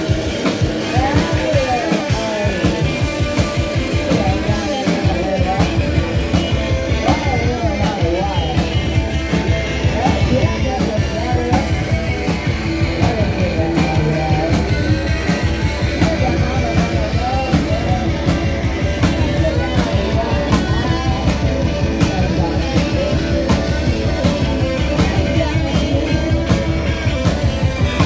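Live garage-punk rock band playing: electric guitars over a steady, driving drumbeat. The low end fills out about five seconds in.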